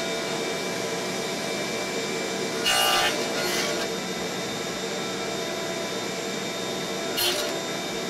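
Table saw running steadily while a pine board is passed over the blade on an indexing jig to cut evenly spaced cable slots. The blade bites into the wood briefly about three seconds in and again near the end, each cut louder and brighter than the steady running.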